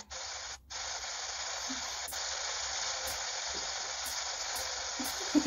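A steady, even hiss like static, with a short break about half a second in, cutting off suddenly near the end.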